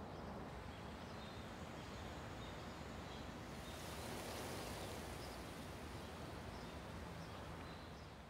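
Faint outdoor ambience: a steady hiss of air and distant noise with a few short, high bird chirps, swelling slightly in the middle.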